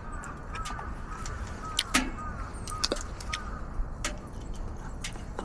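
Birds chirping repeatedly in the background, with scattered sharp clicks and knocks and a steady low rumble underneath.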